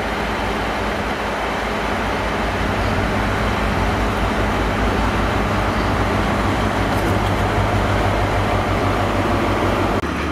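Diesel engine of a Class 43 High Speed Train power car running as the train rolls slowly into the platform, a steady low drone with a fast low pulse, growing slightly louder as it nears. The sound changes abruptly near the end.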